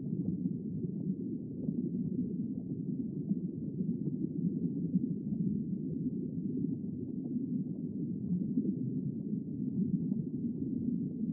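Underwater ambience: a steady, muffled low rumble with faint crackles scattered through it.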